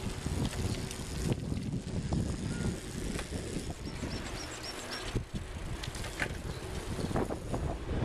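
Bicycles rolling along a tarmac road: a steady rumble of tyres with rattling and clicking from the bikes. A few faint high chirps come about halfway through.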